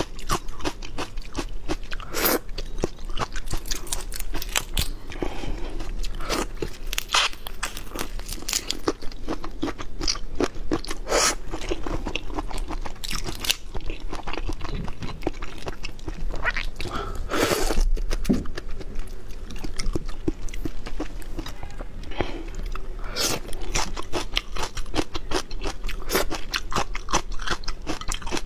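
Shell of a large black tiger prawn being cracked and peeled apart by hand close to the microphone: a dense run of crackles and snaps, with a louder crack every few seconds.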